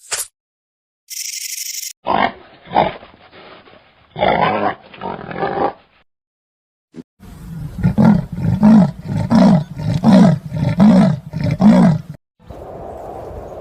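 Big cat roaring, ending in a series of about eight loud, evenly spaced grunts a little over half a second apart. Before it come a short hiss and a few other loud animal calls in separate cut-in clips.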